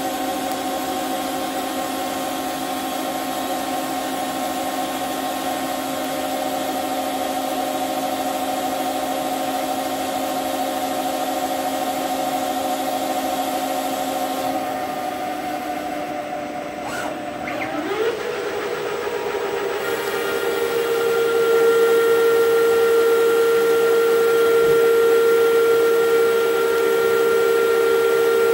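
CNC lathe turning a metal workpiece: a steady whine of several tones from the spindle and cutting tool over a steady hiss. About 18 seconds in the pitch glides up and settles into one stronger, louder tone.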